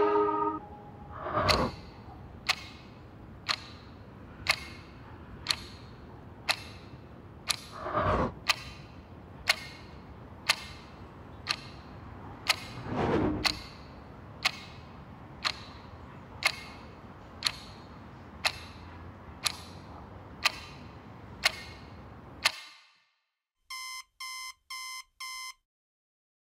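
A clock ticking once a second over a low hum, with three soft swells of noise along the way. The ticking stops, and after a moment's silence an alarm clock gives four quick beeps.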